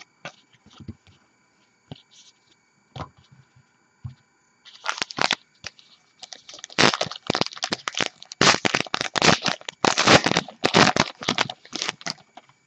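A Topps Gypsy Queen baseball card pack being torn open, its wrapper crackling and crinkling in dense runs of sharp rips from about five seconds in, after a few faint clicks of cards being handled.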